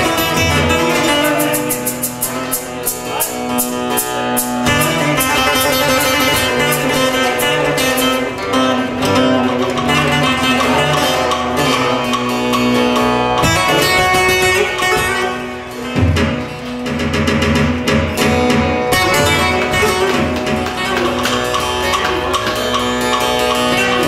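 Electro-bağlama (Turkish long-necked saz) played with a plectrum in a fast, rhythmic instrumental passage, strings struck in quick repeated strokes.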